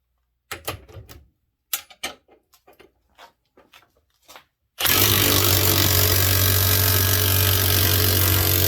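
A few light knocks and clicks of handling, then about five seconds in a Ryobi 18V One+ HP brushless high-torque 1/2-inch impact wrench starts hammering steadily and loudly, driving against a grade 8 coarse-thread bolt to try to break it.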